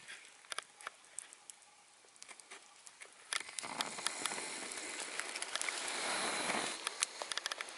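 Campfire crackling with scattered sharp pops. A rushing hiss comes in about three seconds in, builds, and dies away shortly before the end.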